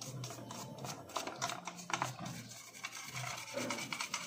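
Plastic back housing of a flood-damaged Honda Civic EG instrument cluster being scrubbed clean of mud by hand, with irregular scraping and rubbing strokes.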